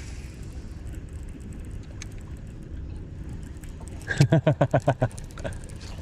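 A man laughing briefly about four seconds in, a quick run of about eight short 'ha' pulses lasting about a second, over a low steady background rumble.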